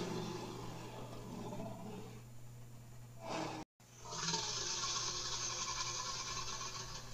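Dinosaur roar sound effects standing in for Giganotosaurus and Carcharodontosaurus. A rough roar tails off over the first three seconds and the sound cuts out abruptly just before four seconds in. A long, harsh roar then starts and runs for about three seconds.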